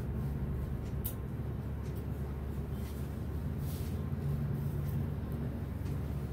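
Steady low hum, with a few faint rustles of a silk saree being handled, about a second in and near the middle.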